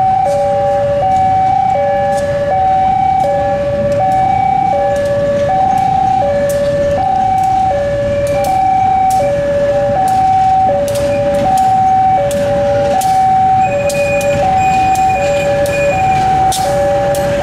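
Railway level-crossing warning alarm sounding a two-tone chime, high and low notes alternating evenly, each held about three-quarters of a second. Under it runs the low rumble of a GE CC201 diesel-electric locomotive moving slowly across, with scattered sharp clicks.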